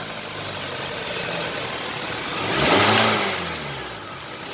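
Hyundai Sonata 2.4 four-cylinder engine idling just after starting, then revved once about two and a half seconds in, its pitch rising and falling back to idle. It is the engine being checked for an engine knock.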